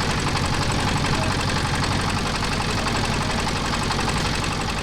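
Motorised boat engine running steadily, with a fast, even knocking beat.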